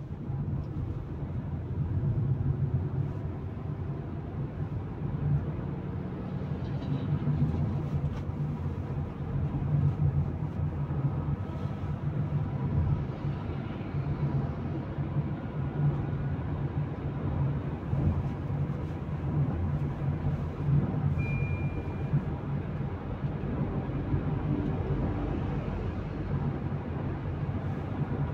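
Steady low drone of road and engine noise inside a Tata Punch's cabin while it cruises along a highway.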